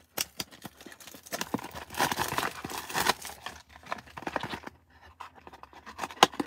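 Plastic shrink-wrap being torn and crinkled off a trading-card box: a dense crackling stretch a second or two in, then scattered sharp clicks and rustles of plastic and cardboard.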